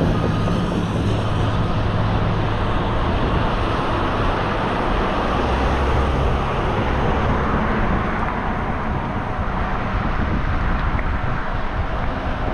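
Road traffic: a motor vehicle's engine hum, steady for the first couple of seconds and then fading, over continuous road and tyre noise.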